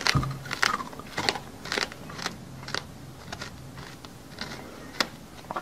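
Close-miked chewing of crunchy food, a crunch about every half second that gets softer and more spaced out toward the end.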